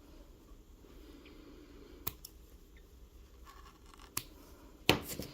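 Scissors snipping yarn: a few sharp clicks about two and four seconds in, the loudest near the end.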